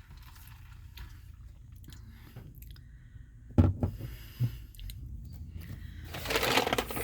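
A person chewing crispy fried chicken nuggets, with a few sharp bites or crunches about halfway through and a short burst of noise near the end.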